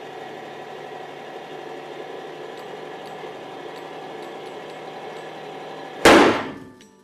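A hydraulic press's pump hums steadily as it loads a 2-ton hydraulic bottle jack. About six seconds in there is a single very loud bang, with a short ringing fade, as the jack gives way under nearly 18.5 tonnes.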